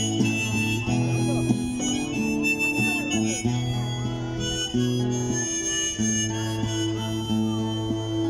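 Harmonica in a neck rack and acoustic guitar played together by one musician: the harmonica holds steady notes that change every second or so over the guitar's accompaniment.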